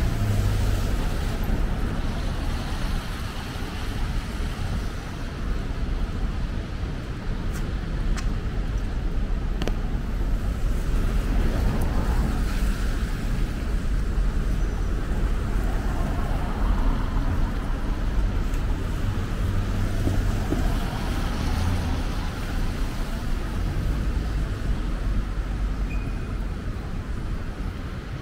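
City street traffic: cars passing on wet pavement over a steady low rumble.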